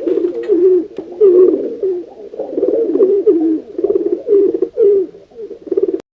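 Pigeons cooing: a steady run of overlapping, wavering low coos that cuts off abruptly near the end.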